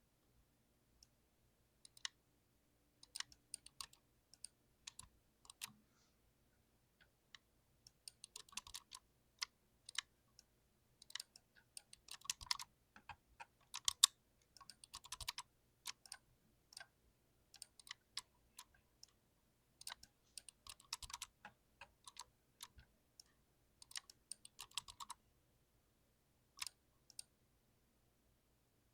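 Mechanical keyboard with tactile switches being typed on, keystrokes clacking in irregular runs. The typing is sparse at first, then comes in quick bursts, and trails off to a few single taps near the end.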